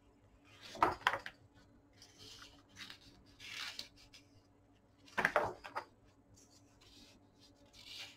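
Glossy pages of a large hardcover book being turned by hand twice, one page turn about a second in and another just after five seconds. Softer rubbing of hands sliding over the paper comes between them.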